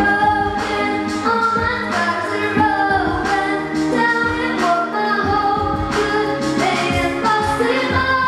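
A young girl singing a pop-style song into a handheld microphone over instrumental backing music with a steady beat.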